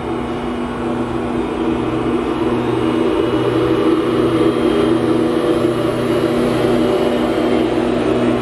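FS E.652 'Tigre' electric locomotive moving off slowly past the platform, giving a steady electric hum made of several held tones, with a low pulsing beneath it. It grows louder as the locomotive draws alongside.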